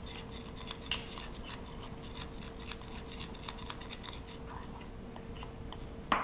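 Metal spoon stirring and scraping a baking powder paste in a glass bowl, with light clinks of spoon against glass; a sharper clink about a second in and another near the end.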